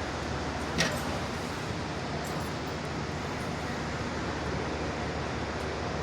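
Mercedes-Benz Arocs truck diesel engine running steadily, with one sharp click about a second in.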